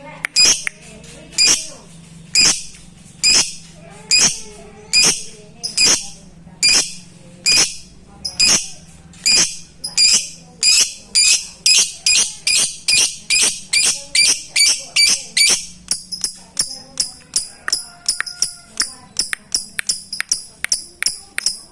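Lovebird giving its repeated sharp, high 'ngetik' call, the clicking call a lovebird uses to challenge a rival, about one call a second at first and quickening to two or three a second from about halfway through.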